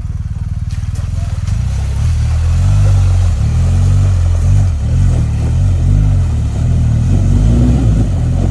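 BMW GS adventure motorcycle's engine revving up and down in low gear as it pushes through a shallow creek crossing, louder from about a second and a half in, with water splashing around the wheels.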